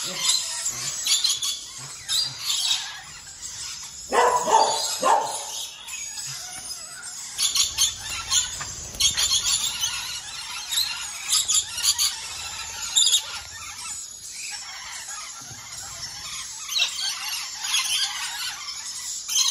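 A flock of rainbow lorikeets screeching and chattering over one another in continuous high-pitched calls, with two louder, lower squawks about four seconds in.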